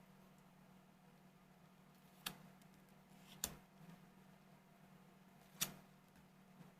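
Near silence with a faint steady hum, broken by three short, sharp clicks a second or two apart: trading cards being handled and set down while a booster pack is sorted.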